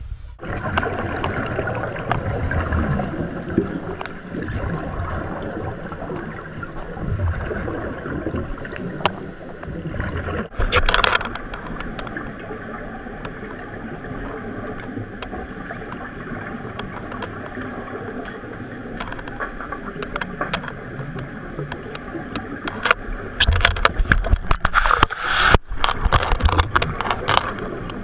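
Underwater sound of scuba divers breathing through their regulators, with exhaled bubbles gurgling past the camera. Louder bursts of bubbling come about ten seconds in and again near the end.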